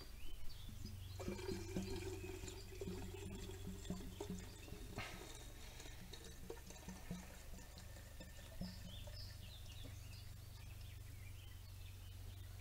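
Liquid poured from a can through a spout into a chainsaw's tank, glugging in a quick, even rhythm that fades out near the end.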